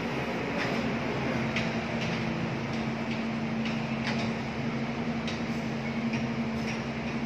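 Air-handling unit running in a plant room: a steady drone of a few low tones over an even rush of air, with a few faint irregular clicks.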